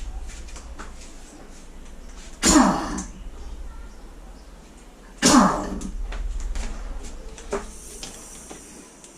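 Pneumatic impact wrench fired in two short bursts about half a second long and a few seconds apart, each dropping in pitch, turning the bolt of a flywheel puller to draw the magneto rotor off a Honda 150 motorcycle engine.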